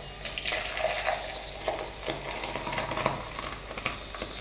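Hot horse gram rasam being poured from a pan into a stainless steel vessel: a steady splashing pour with a few small clicks.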